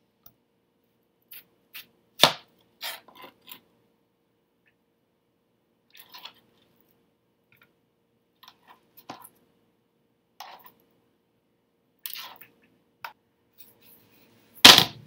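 Knife cutting cantaloupe on a plastic cutting board: scattered knocks and clicks of the blade on the board, a sharp knock about two seconds in and the loudest knock near the end.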